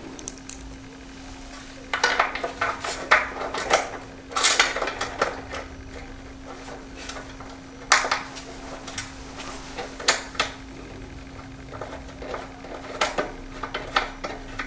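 Small metal screws and flat washers clinking and rattling in scattered bursts as they are handled and set onto a metal roof-rack frame, with a faint steady hum underneath.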